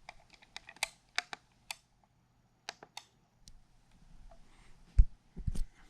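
Quick clicks of small plastic buttons being pressed on an Electrohome EAAC601 clock radio, a dozen or so in the first three seconds, then a louder knock about five seconds in as the unit is handled.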